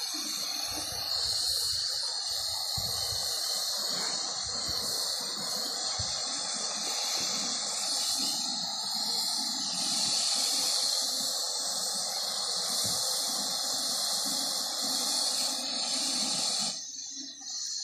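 Steam hissing steadily from a meths-fired Gauge 3 live steam model of a Stanier 8F locomotive. The hiss cuts off abruptly near the end, as a valve in the cab is turned by hand.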